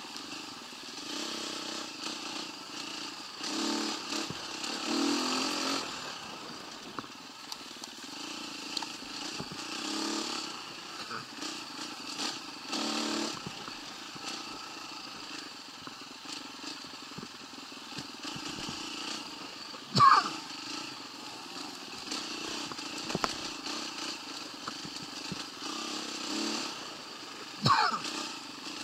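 125cc motorcycle engine running under way, with several surges in throttle. Two short, sharp, louder sounds stand out, one about two-thirds of the way through and one near the end.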